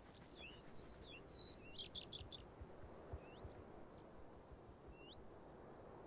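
European golden plover calling, faint: short high whistles and chirps, with a quick run of about five notes about two seconds in, then a few single slurred whistles, one rising near the end.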